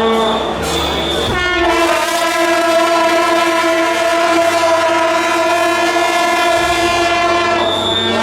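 Loud, sustained horn tone held for several seconds, rich in overtones, stepping up in pitch about a second in and dropping back near the end.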